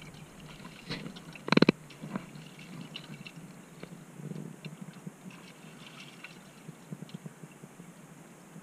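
Small wet squelches, clicks and splashes as a freshly skinned lionfish is handled and rinsed in seawater, with a short rattling knock about one and a half seconds in.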